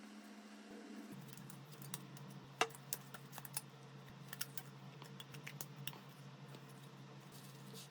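Faint, irregular clicks and taps of small tools and parts being handled on a smartphone under repair, the loudest about two and a half seconds in.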